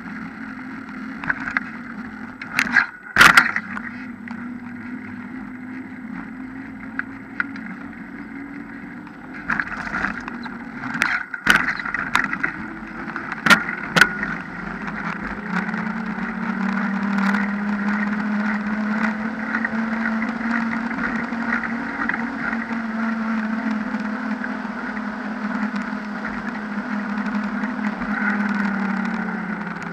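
Knobby mountain-bike tyre humming on asphalt as the bike rolls downhill, picked up by a handlebar-mounted camera. A handful of sharp knocks from bumps rattle the bike and mount in the first half. The hum grows louder and steadier in the second half.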